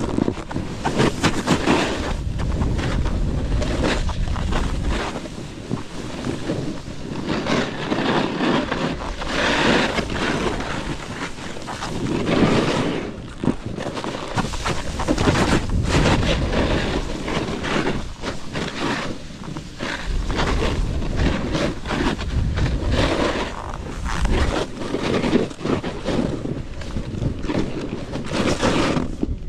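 Wind buffeting the microphone of a snowboarder's point-of-view camera while riding, with rough rushing and scraping that swells and fades as the board runs over the snow.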